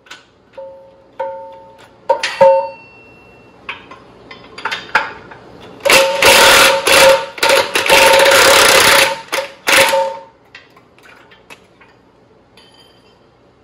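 DeWalt cordless impact run in a few short whirring blips, then hammering for about four seconds from about six seconds in as it breaks loose a pillow block bearing bolt while a wrench holds the nut.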